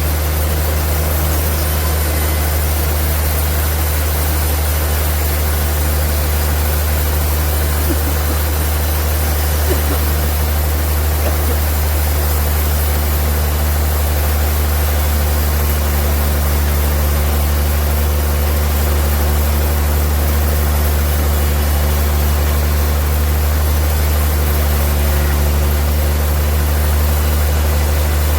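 Sawmill machinery running steadily: a loud, even low hum of motors with a constant hiss over it, holding the same pitch throughout.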